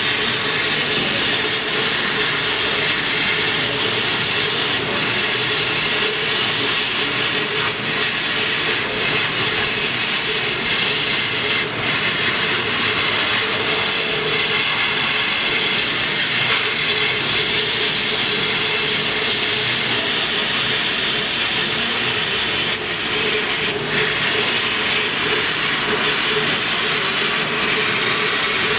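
Laser cutting machine running as it cuts a 3 mm sponge sheet: a steady hiss of air from the air-assist nozzle, with a steady hum underneath.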